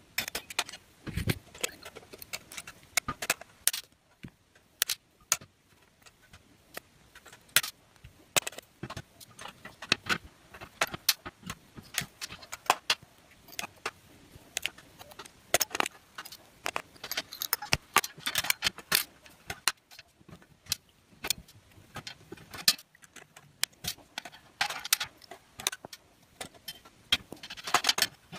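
Diagonal side cutters snipping excess component leads off a soldered circuit board: a long string of sharp, irregular clicks, some in quick clusters, with small metal parts clinking and rattling on the workbench.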